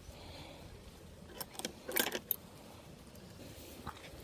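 A faint steady rush with a handful of sharp, light clicks and taps, bunched together about a second and a half to two and a half seconds in.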